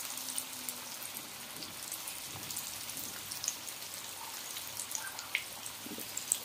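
Hara bhara kababs (spinach and potato patties) shallow-frying in hot oil in a frying pan: a steady sizzle with scattered small crackles and pops.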